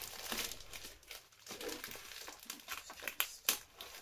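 Plastic mailer bag crinkling and rustling as it is handled and pulled away from a cardboard box, with a run of sharper crackles near the end.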